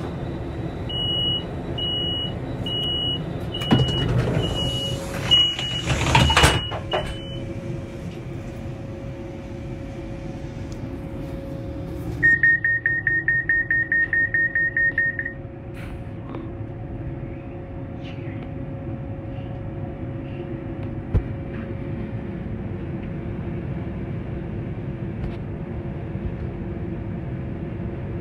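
Irish Rail 201 class diesel locomotive's EMD 12-710 engine idling steadily. Over it, a slow series of high electronic beeps and a few loud knocks come in the first seven seconds, then a fast beeping, about five a second, for some three seconds around twelve seconds in.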